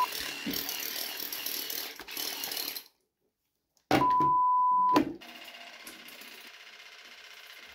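Bitvae C2 cordless water flosser running, its pulsing jet hissing into a ceramic sink basin, cutting off about three seconds in. About four seconds in comes a steady one-second bleep tone, the loudest sound. After it the flosser runs again with its nozzle in the mouth: a quieter, steady pulsing hum.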